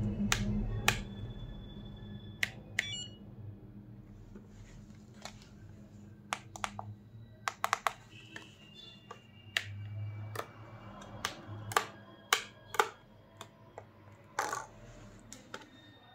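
Irregular sharp clicks and taps of a hard plastic FlySky FS-i6s radio transmitter being handled and turned over in the hands, over a low hum that fades in the first few seconds.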